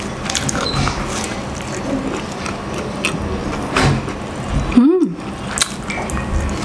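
Close-miked eating: a cheese-filled pandesal being pulled apart and chewed, soft bread and mouth sounds with small clicks. A brief hummed 'mm' about five seconds in.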